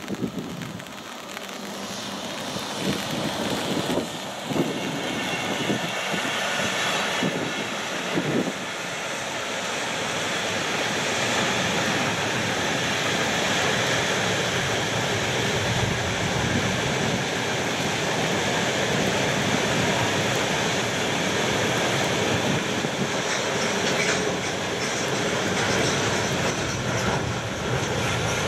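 A long heavy freight train passing: the steady rush and rumble of its wagons rolling on the rails, growing louder over the first ten seconds or so and then holding steady as the wagons go by. A few sharp knocks sound in the first several seconds.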